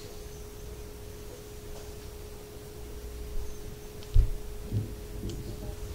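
A steady one-pitch hum, with a short low thump about four seconds in.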